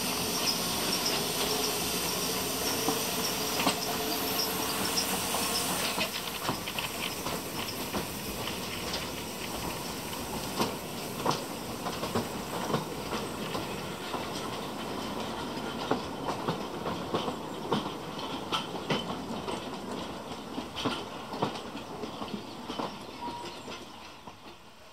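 Narrow-gauge steam train pulling out: steam hissing from the saddle-tank locomotive for the first few seconds, then the coaches rolling past with irregular clicks of wheels over the rail joints, fading near the end.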